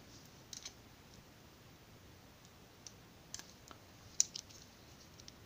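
Scattered faint clicks and taps of a cheap metal pocket multi-tool being handled as its can opener is prised out, with a sharper click about four seconds in.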